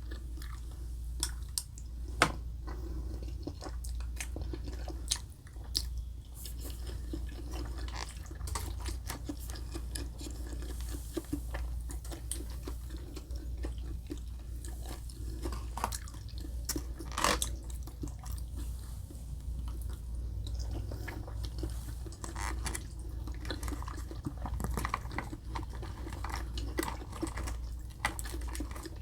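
Chewing and mouth sounds of someone eating chicken katsu, rice and macaroni salad, with many irregular soft crackles and sharp clicks.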